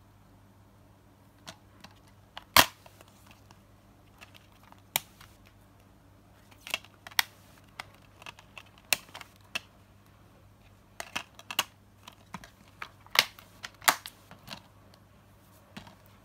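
Plastic DVD keep case being handled, opened and shut: a string of sharp clicks and taps, with a loud snap about two and a half seconds in and two more loud snaps near the end.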